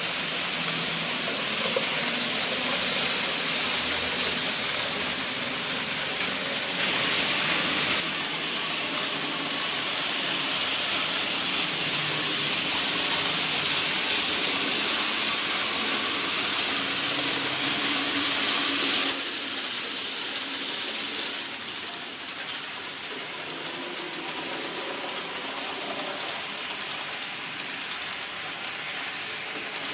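Electric model trains running on a model railway layout: a steady hiss and whir of small wheels rolling on the rails and the locomotives' motors, which drops in level about two-thirds of the way through.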